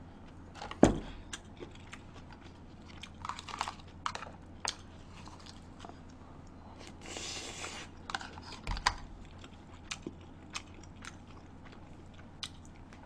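A person eating: chewing, with scattered clicks of utensils against plastic takeout containers. A knock with a low thump comes just under a second in, another near nine seconds, and a short noisy burst around seven seconds.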